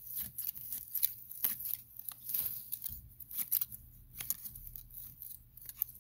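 Hand garden shears snipping through tall grass and weeds, a quick, irregular run of snips, about three or four a second.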